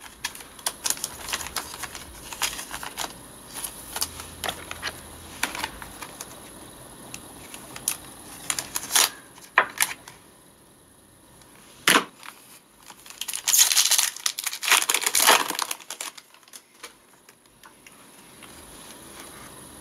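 Trading cards being handled and flipped through: a run of light clicks and papery rustles, with a longer, louder rustle about two-thirds of the way through.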